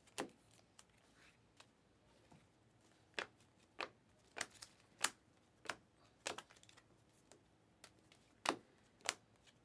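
Stack of Panini Optic basketball trading cards being flipped through by hand: a crisp click as each card is slid off the stack. The clicks are few at first, then come about every half second from about three seconds in.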